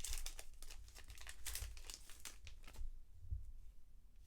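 Crinkling and tearing of a foil trading-card pack wrapper being opened and handled: a quick string of crackles for about three seconds that then dies down to a few faint ticks.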